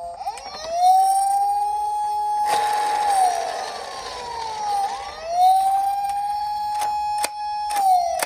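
Japanese police car siren wailing: the tone rises, holds steady, then falls, twice over. A rushing noise comes between the two wails, and a few sharp clicks sound near the end.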